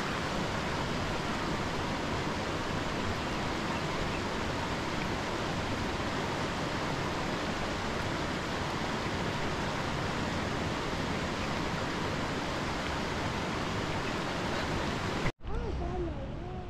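Steady, full rushing of water, as of a fast river or rapids. About 15 s in it cuts off abruptly to a quieter low rumble with a few faint wavering tones.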